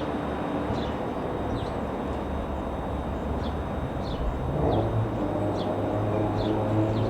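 Light aircraft's piston engine running steadily, its pitch rising and getting a little louder about four and a half seconds in as the power is increased.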